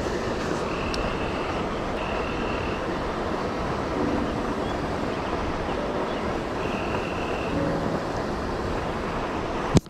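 Steady rushing noise of river water flowing below a spillway, with a few short high whines. The sound cuts off with a click near the end.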